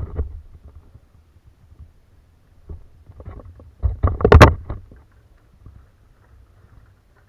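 Knocks and clatter against a plastic kayak while a hooked jack is fought on the rod. A few short knocks come around the middle, and a loud cluster follows about four seconds in.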